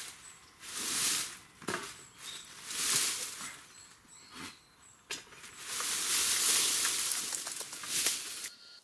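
Scraping strokes along a freshly cut branch, about one every two seconds. From about five seconds in, a longer stretch of rustling and footsteps through dry leaf litter takes over.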